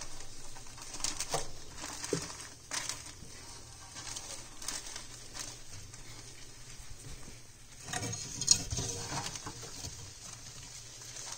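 Clear plastic bag crinkling and rustling in short, scattered crackles as feeder crickets are shaken out of it. About eight seconds in there is a louder, busier stretch of rustling.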